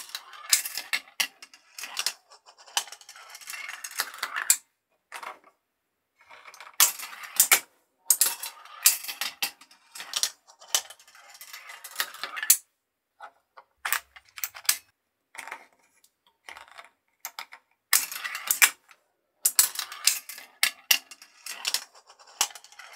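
Marbles rolling and clattering through a plastic Gravitrax marble run, with sharp clicks and knocks as they run along the rails and drop through the pieces. It comes in bursts of a second or two, with short quiet gaps between them.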